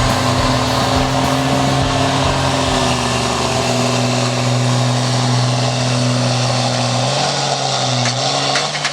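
Engine of a pulling vehicle held at high, steady revs under load, its pitch dropping a little about seven seconds in.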